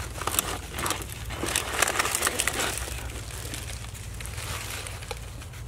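Dry fallen leaves rustling and crackling as they are shifted, with irregular crisp clicks that are busiest in the first half and thin out after.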